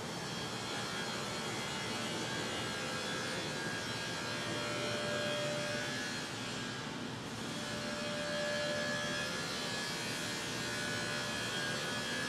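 Motor-driven stainless steel hopper running: a steady electric hum and whir with a faint whine, dipping briefly about seven seconds in.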